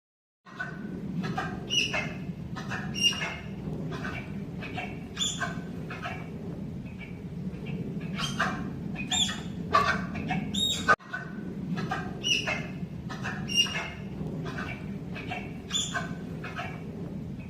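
Birds squawking and chirping in short, repeated calls, several overlapping, over a steady low hum. The calls start about half a second in and break off briefly about eleven seconds in.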